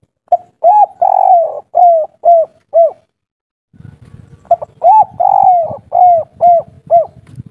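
Spotted dove cooing its 'kuk 3' song: two phrases of about six arched coos each, the second starting about four and a half seconds in. A low rumbling background noise comes in about halfway through.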